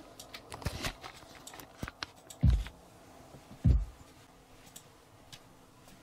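Computer keyboard and mouse clicking and tapping in a small room, with two loud, dull thumps about two and a half and nearly four seconds in, then only faint occasional clicks.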